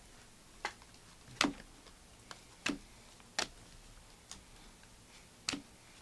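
A stack of trading cards being flipped through by hand, each card slid off the stack with a short sharp click or snap. There are about seven, unevenly spaced, roughly one a second.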